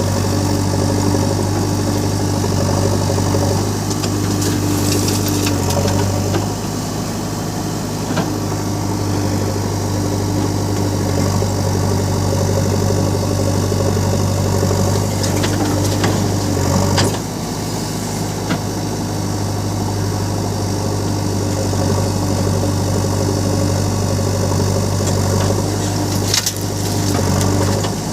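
Heavy diesel engine running steadily at low revs, its note dropping a few times, with a few short sharp clanks.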